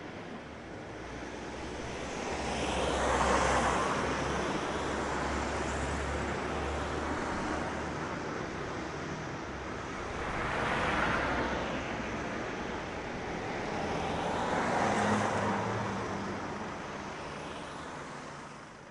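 Road traffic: a steady hum of vehicles with three passing vehicles swelling up and dying away, the loudest about three seconds in, then around eleven and fifteen seconds, with a low engine rumble under the first pass. The sound fades out at the very end.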